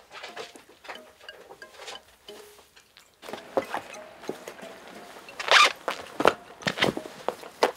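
Faint tinkling music notes, then two cats wrestling on a straw tatami mat: irregular scuffling, rubbing and thumps of bodies and paws, with a sharp noisy burst about two seconds into the tussle.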